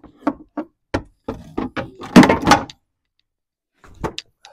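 Hands handling the just-removed upper radiator hose and tools in an engine bay: a run of sharp knocks and clunks, loudest about two seconds in, then a few light ticks near the end.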